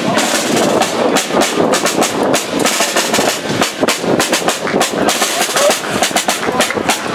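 Busy street-parade noise: a rapid, irregular clatter and knocking mixed with voices.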